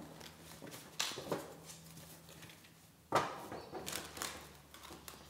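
A deck of oracle cards being shuffled by hand, the cards sliding and rustling against each other with several sharp snaps. The loudest snap comes about three seconds in.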